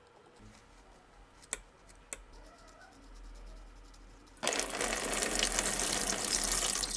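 Two light clicks, then a handheld rotary tool with a wire wheel starts about four and a half seconds in and runs steadily against metal with a loud hissing scrub.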